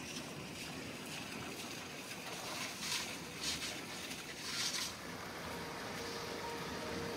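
Steady outdoor background noise with three short rustling or scraping sounds in the middle. Soft background music with held notes comes in near the end.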